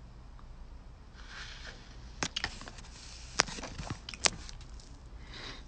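A man's faint breaths, with a handful of small sharp clicks and ticks about two to four seconds in.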